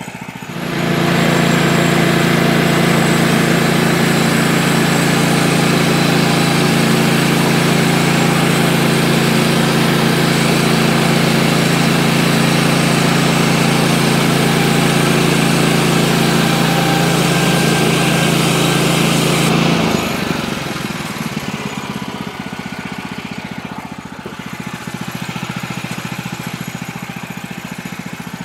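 Woodland Mills HM130 Max portable bandsaw mill running at full throttle, a steady engine drone, as the sawhead is pushed along the track to cut a small log. About 20 seconds in, the engine drops back to a quieter idle.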